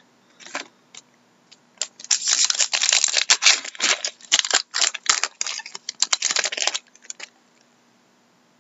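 Foil wrapper of a hockey card pack being torn open and crumpled by hand: a few light clicks, then a dense run of crackling from about two seconds in until nearly seven seconds.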